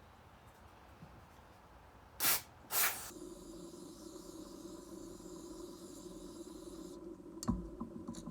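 Two short, loud bursts of hissing spray, then a steadier hiss over a low hum that stops shortly before a thump near the end.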